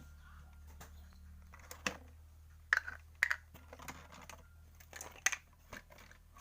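Scattered sharp clicks and taps of a toy's cardboard box and plastic packaging being handled during unboxing, over a low steady hum.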